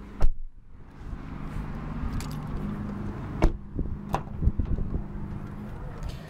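Car door being handled: sharp clicks and knocks from the door handle and latch over a steady low hum. The loudest click comes about a quarter second in.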